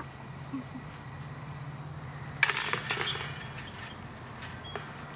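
A disc striking the chains of a disc golf basket: a sudden metallic jangle about two seconds in that rattles and rings out over about a second.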